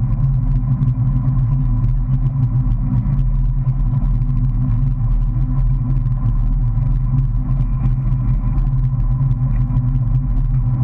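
Motorboat engine running steadily at low speed, a constant low rumble heard close up from the stern as the boat pulls away from the towed tube.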